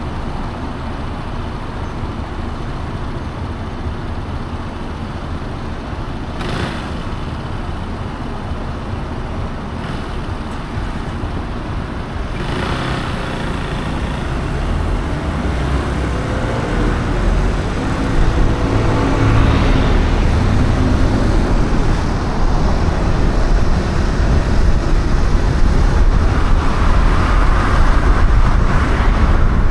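Steady road and traffic noise of a car driving through city streets: tyre and engine rumble that grows louder about halfway through.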